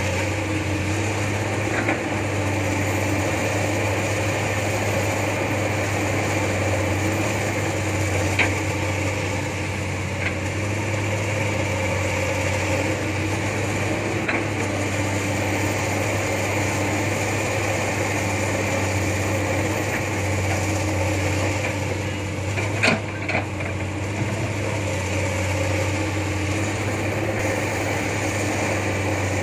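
Heavy diesel engine running steadily at a constant speed, with a low hum. A few short, sharp knocks stand out, the loudest a pair about 23 seconds in.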